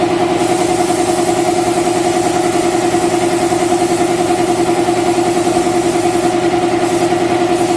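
An air compressor running with a steady, pulsing hum, under the hiss of a paint spray gun spraying fire-red paint. The spray hiss breaks into short bursts near the end.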